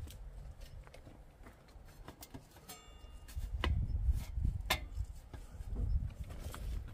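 A hand grips and handles a galvanized spiral-duct metal flue pipe, giving a few sharp clicks and knocks over a low rumble on the microphone.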